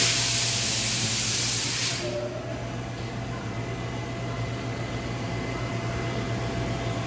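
Wasino LG-7 CNC lathe running with its spindle at about 1,500 rpm, a steady machine hum. A loud hiss sounds over it for about the first two seconds, then cuts off suddenly.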